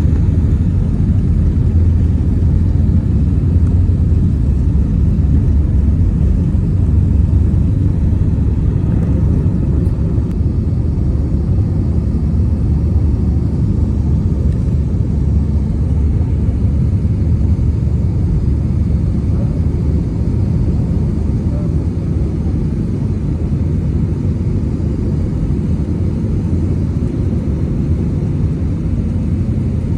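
Airbus A320 jet airliner heard from inside the cabin on departure: a steady low rumble of engines and airflow, easing slightly in the second half.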